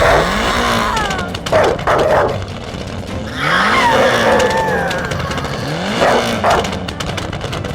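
A dog barking and yelping in short bursts, with one longer falling whine about halfway through.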